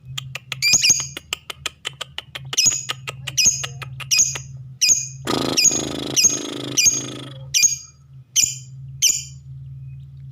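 Lovebird giving harsh, shrill chirps: a fast string of calls at first, then single calls about every half second to a second, with a rasping stretch near the middle. A low steady hum runs underneath. This harsh-voice ('suara kasar') lovebird calling is used as a lure to make silent lovebirds answer and start singing.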